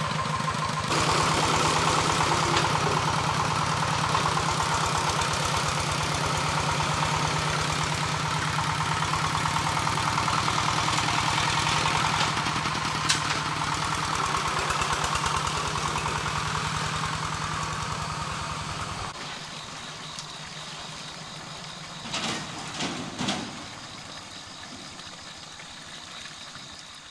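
A farm vehicle's engine running steadily with a fast, even pulse, fading and dropping away about two-thirds of the way through. After that the background is quieter, with a few short clatters.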